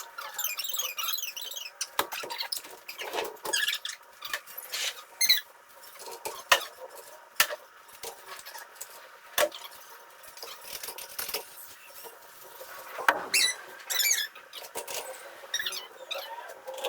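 Metal transmission parts being handled and cleaned: irregular sharp clinks and clicks of metal on metal, with short high squeaks now and then.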